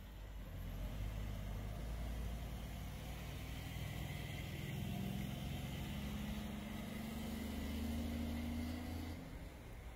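Vehicle engine running, its pitch rising steadily over several seconds as it speeds up, then dropping away near the end.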